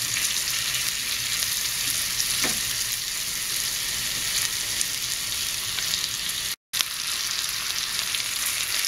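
Sliced onions, peppers and green chillies sizzling steadily in hot oil in a very thin iron pan as they soften over high heat, with a wooden spatula stirring and scraping the pan now and then. The sound drops out for an instant about six and a half seconds in.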